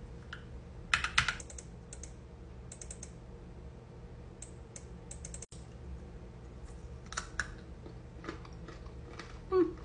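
Computer keyboard typing in short, separate bursts of keystrokes. Near the end comes crunching as a handful of dry snack is eaten.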